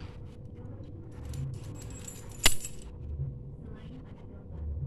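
Light scratchy clicks and rustles of a kitten batting at a dangling toy with a crinkly plastic piece on a tiled floor, with one sharp, loud clink about two and a half seconds in.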